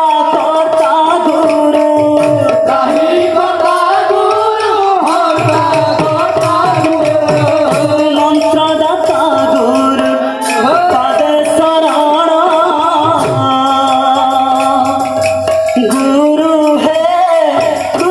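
Odia kirtan: a group of men singing a devotional chant with held, wavering notes, accompanied by a two-headed barrel drum. The drum strokes come in strongly about five seconds in.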